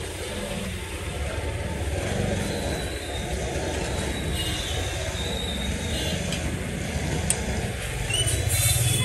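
Steady low rumble of motor vehicles running nearby, with a sharp click about seven seconds in and a short hiss near the end.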